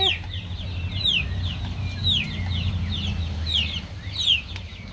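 Chickens peeping: a steady run of short, high-pitched calls that each fall in pitch, two or three a second, over a low steady hum.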